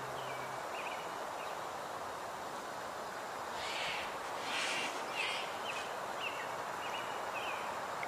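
A small bird chirping in short, repeated calls over a steady outdoor hiss, with a few louder, scratchier sounds around the middle.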